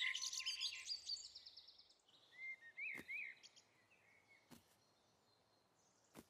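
Cartoon sound effects: a run of high twinkling tones fades out over the first two seconds. Then come a few short bird chirps, with faint scattered ticks.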